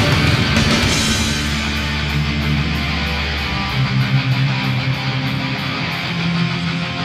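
Heavy rock music with electric guitar and a steady beat.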